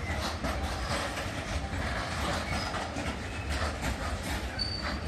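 Freight train of covered hopper wagons rolling past: a steady rumble of wheels on rail with clickety-clack and knocks over the joints, and a brief high wheel squeal near the end.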